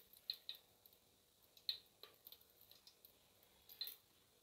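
Mustard oil heating in an aluminium pressure cooker, giving faint, irregular small crackles and ticks, with a couple of louder ones near the middle and near the end.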